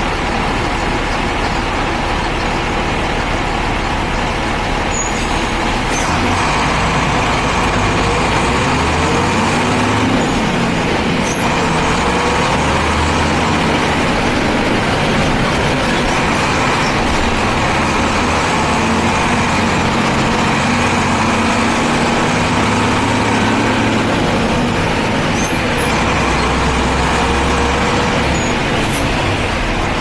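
Mercedes-Benz diesel bus engine running, its engine speed rising and falling several times as it pulls and changes gear.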